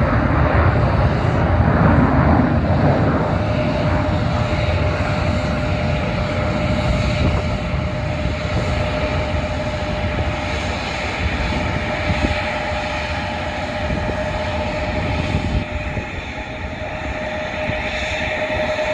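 McDonnell Douglas F-15C Eagle fighter jets' twin afterburning turbofans roaring after takeoff, the rumble slowly easing as they climb away, with a steady whine present from a few seconds in.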